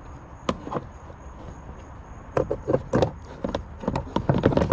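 Footsteps on pavement: a scattering of short, sharp knocks, a couple early and then a quick run of them in the last two seconds.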